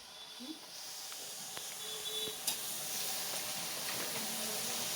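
Faint steady hiss of background noise, with a light click about two and a half seconds in.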